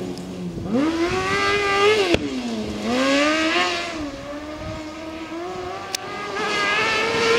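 Kartcross buggy's Suzuki GSX-R four-cylinder motorcycle engine at full racing revs on a gravel track: the pitch climbs steeply about a second in, drops sharply near two seconds, climbs and falls again, runs lower through the middle and climbs once more near the end.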